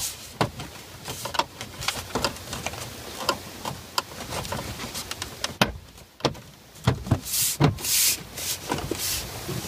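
Plastic dash trim and stereo being worked and pressed into the dashboard: a run of clicks, knocks and rubbing scrapes, with several sharp snaps as it seats in place in the second half.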